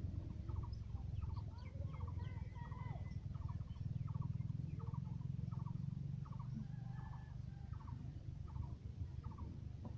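A bird repeats a short rattling call about one and a half times a second, over a steady low rumble.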